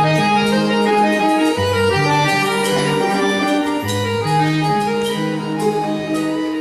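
Instrumental interlude of a Russian romance with no singing: a melody over held chords and a bass line that changes notes every second or so.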